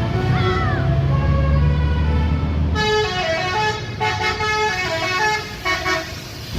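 A bus's basuri telolet multi-tone air horn playing a melody of stepped, held notes, over a bus engine's low rumble that drops away about three seconds in.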